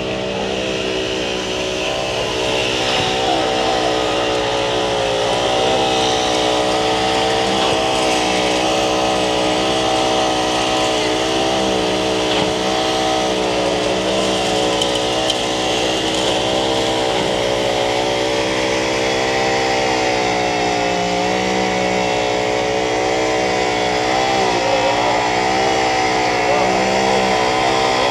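Diesel engine of a concrete pump running steadily during a concrete pour, its pitch dipping slightly now and then.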